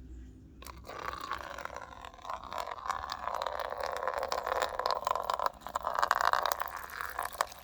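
Water being poured for the cats to drink, a steady pour starting just under a second in and running on with a brief break about two-thirds of the way through.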